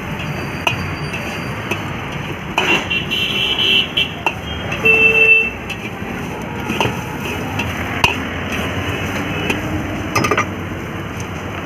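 Long steel ladle scraping and clinking against a large iron wok as cabbage and manchurian balls are stir-fried, in short strokes scattered through, over a steady background of street traffic. About five seconds in, a brief steady tone stands out as the loudest sound.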